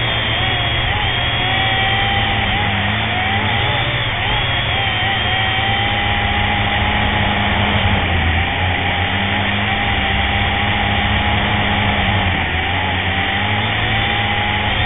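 Quadcopter motors and propellers of a Propel HD video drone in flight, heard close up from its onboard camera: a steady buzzing whine over rushing noise, its pitch wavering up and down as the throttle changes.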